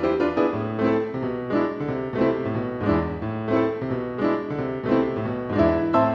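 Solo piano music, a lively tune with a bass line underneath, notes struck in a steady rhythm, in the style of a silent-film accompaniment.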